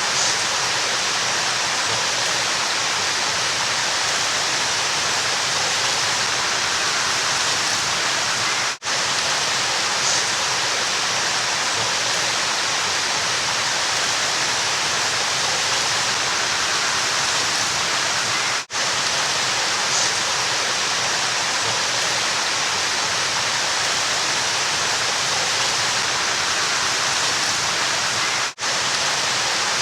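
River water flowing steadily, a dense even hiss of moving water, broken by a momentary gap about every ten seconds, three times.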